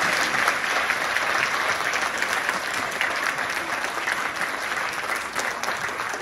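An audience applauding: dense, steady clapping from a seated crowd, slowly dying down toward the end.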